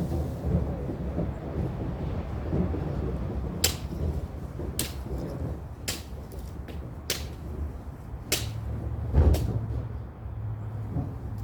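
Machete blade striking and cutting through brush stems in sharp strokes about once a second, over a steady low rumble.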